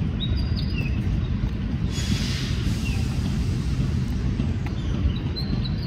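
Loaded sugarcane bins of a cane train rolling past on the rails with a steady low rumble. A brief hiss comes about two seconds in.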